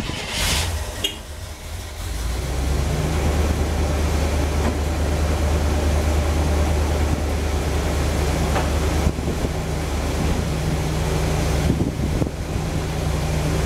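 1975 Corvette's small-block V8 idling steadily in the shop, the note stepping up louder about two seconds in and then holding even.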